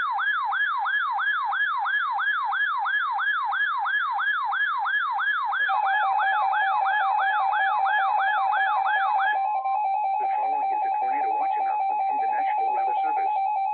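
Electronic alert siren warbling up and down about two and a half times a second, joined about halfway by a steady alert tone. The warble cuts off about two-thirds of the way in, leaving the steady tone.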